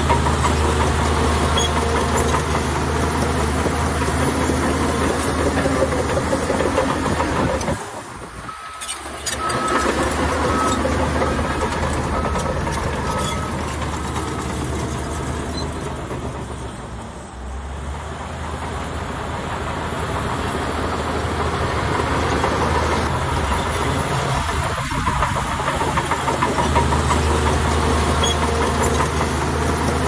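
Diesel engines of heavy earthmoving machinery running under load, with mechanical clatter. The sound dips briefly about eight seconds in, and a short run of evenly spaced high beeps follows.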